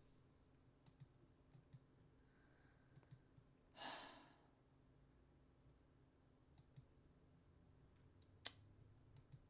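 Near silence broken by scattered faint clicks and one short sigh about four seconds in, with a sharper single click near the end.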